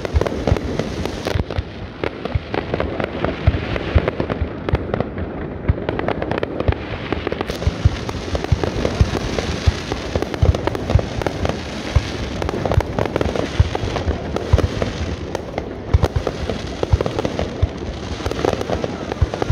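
Aerial fireworks display: shells bursting overhead in a rapid, continuous run of bangs and crackles.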